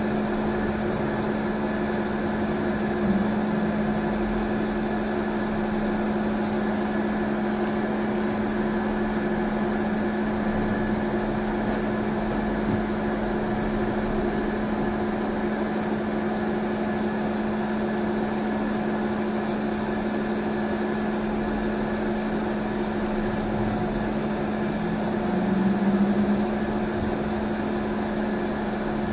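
Steady hum and running noise inside a trolleybus cabin, with one constant low tone and a fainter higher one over an even rumble, swelling briefly near the end.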